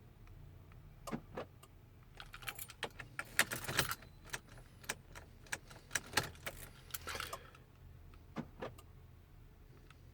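A bunch of keys jangling, with a run of irregular sharp metallic clicks and jingles, busiest in the middle and dying out near the end.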